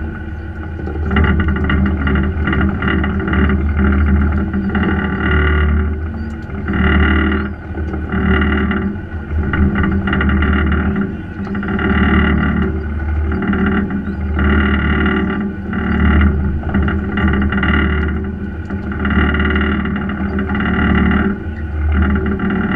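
Charter fishing boat's engine running steadily with a deep drone, heard muffled, with the level swelling and easing every second or so.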